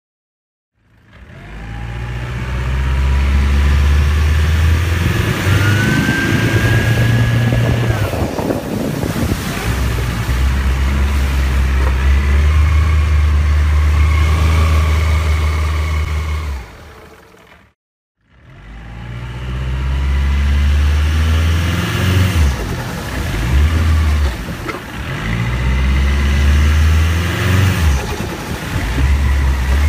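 OXE Diesel outboard engine running on a boat, its deep note stepping up and down in speed as the drive is shifted between neutral, forward and reverse, with wind and water rushing. A whine rises in pitch a few seconds in. The sound drops out briefly about halfway through, then the engine picks up again.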